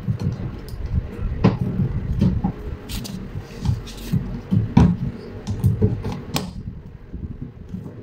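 A black plastic cover panel on a washing machine being pushed and knocked into place by hand: a series of sharp plastic clicks and knocks over a low rumble.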